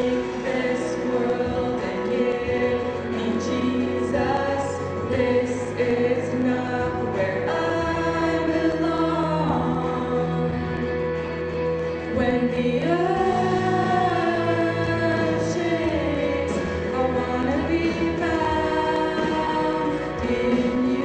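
Christian gospel-style song: voices singing a melody over a steady instrumental backing with sustained bass notes.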